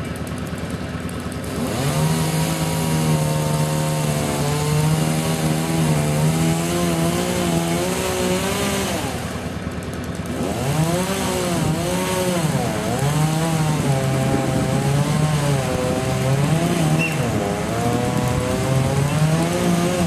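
Chainsaw cutting into a palm trunk. It revs up about two seconds in and runs at high speed with its pitch wavering, drops off briefly about halfway, then revs again with the pitch repeatedly rising and falling.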